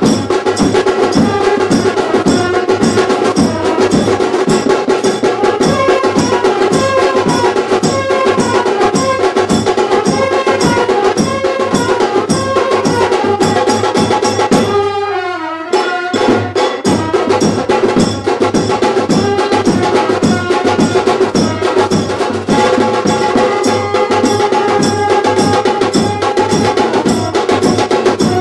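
Brass band of trumpets and marching drums playing a loud, driving tune with a steady drumbeat. About halfway through the music breaks off briefly with a falling slide, then drums and trumpets start up again.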